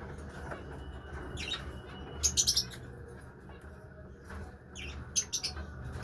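Lovebirds chirping: short, sharp calls in a few quick clusters, the loudest about two seconds in, over a steady low hum.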